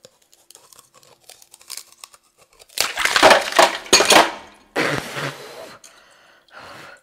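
Close-up crunching of a chunk of frozen, blue-coloured ice being bitten and chewed: faint clicks at first, then loud crunches from a bit under three seconds in, with a second loud crunching stretch about a second later.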